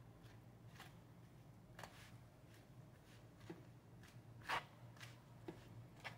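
Faint scrapes and taps of a plastic spoon scooping rice in a styrofoam takeout box, a handful of short ones spaced about a second apart, the loudest about four and a half seconds in, over a low steady hum.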